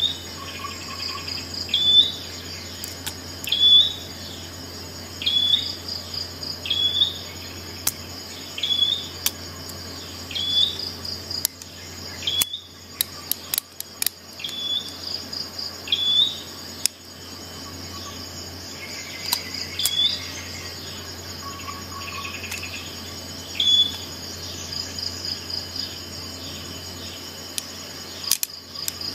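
High, short chirping calls repeating about every second and a half over a faster, higher pulsed trill and a low steady hum. A few sharp metallic clicks come from the multi-tool being handled.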